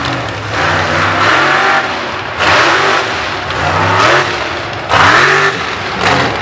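Mud-bog buggy's engine revving hard in repeated surges, its pitch climbing and dropping about once a second as it runs through the mud pit.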